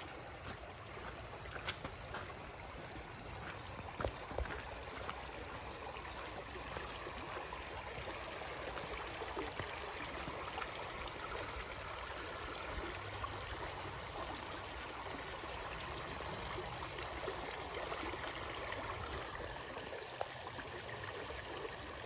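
Shallow creek flowing over flat rock ledges and small riffles: a steady burble of running water. A few sharp clicks stand out in the first few seconds.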